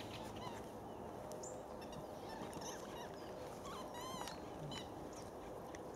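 Birds calling: several short calls, the loudest about four seconds in, over a steady low rumble.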